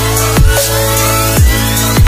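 Electronic background music with deep kick drums about once a second and a slowly rising synth tone.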